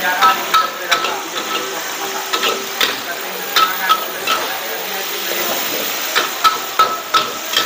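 Chicken and beef sizzling in hot oil in a wok while a metal spatula scrapes and strikes the wok, giving irregular short ringing clanks over the steady frying hiss.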